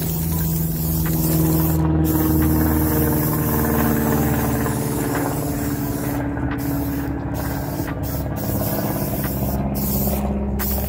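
Aerosol spray-paint can hissing in long bursts, with several short breaks between sprays, over background music of held low notes.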